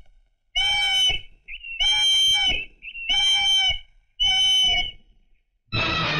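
A police whistle blown in four sharp blasts, each under a second long and about a second apart, to raise the alarm. Music starts near the end.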